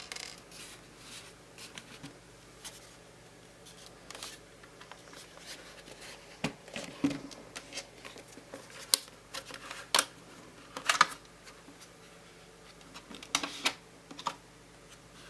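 Scattered light clicks, taps and scrapes of hand work on a laptop's plastic case as the screws holding the keyboard are taken out, with the sharpest clicks about nine, ten and eleven seconds in.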